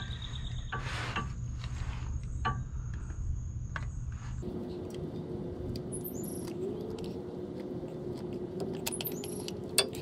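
Scattered light clicks and small metallic knocks as TEKTON 12-inch oil filter pliers grip and work a pickup's oil filter loose, over a steady high-pitched background tone. The background hum changes abruptly about halfway through.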